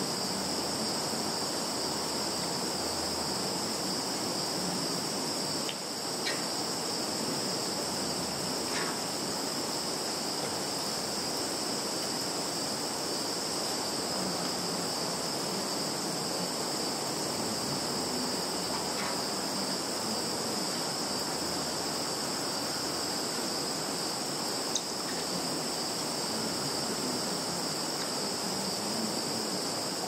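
Field insects chirring steadily in a continuous high-pitched buzz over a soft even hiss, with a few faint ticks.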